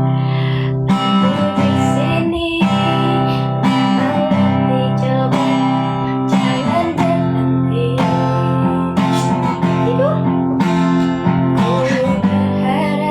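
Acoustic guitar strumming chords in a steady rhythm, with a melody that slides between notes over the top.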